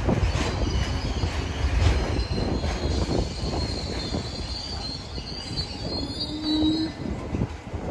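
New York City subway train running, with a low rumble of wheels on rail that gradually dies down. A high-pitched wheel squeal comes in about three seconds in and fades out near seven seconds.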